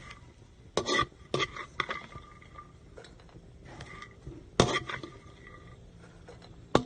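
Dishes clinking and knocking as they are handled, a few separate knocks with a short ring after some of them.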